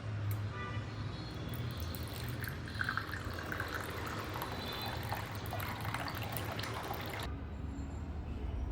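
Water running and splashing, with small scattered drips and spatters, stopping abruptly about seven seconds in.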